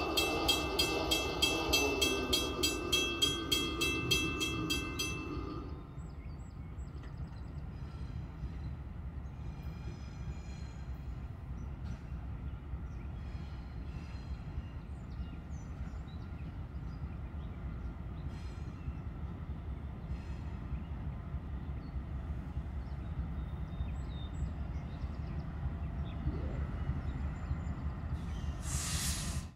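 Mechanical grade-crossing bells ringing rapidly, about two and a half strokes a second, which stop about six seconds in. After that, the low, steady rumble of an approaching Norfolk Southern diesel locomotive, with a brief rush of noise near the end.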